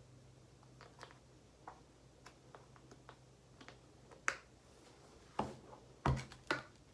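Irregular light clicks and taps of small objects being handled, with a few sharper knocks in the last couple of seconds. A faint low hum fades out about a second in.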